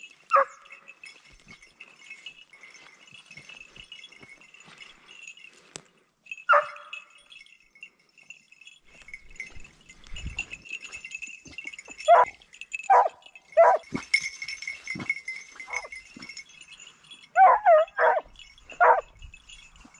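Hunting scent hounds barking in short, sharp cries. There is one near the start and one about six seconds in, then a run of cries from about twelve seconds on, with several close together near the end.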